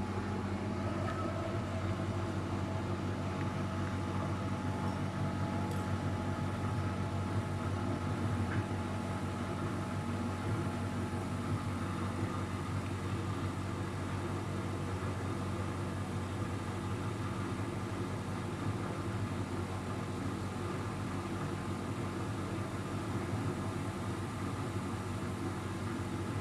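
Luxor WM 1042 washing machine running with a steady hum and no change in pace.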